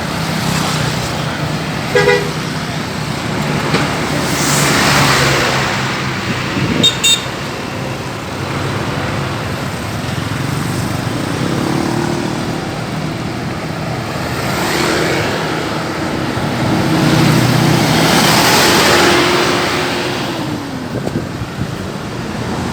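Road traffic with vehicles passing, a short horn toot about two seconds in and a brief, high-pitched toot about seven seconds in. A steady low tone holds through the later part and drops away near the end.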